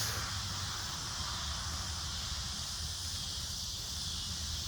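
A steady chorus of insects: a continuous high-pitched hissing drone, with a low steady rumble underneath.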